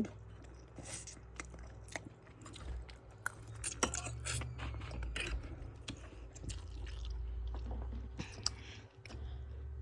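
A person chewing a mouthful of ramen noodles, with irregular small wet clicks and smacks of the mouth.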